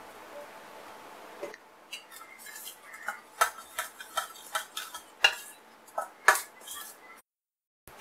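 Steel spoon clinking against a stainless steel bowl while stirring a dry flour coating mix, a dozen or so irregular clinks starting about a second and a half in.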